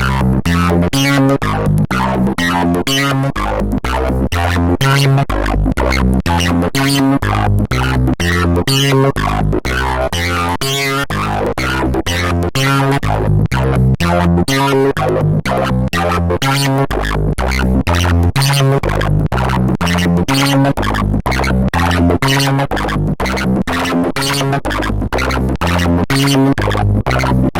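Animoog Z synthesizer app playing a preset: a rapid, even run of short plucked-sounding notes over a bass line that changes note about every half second.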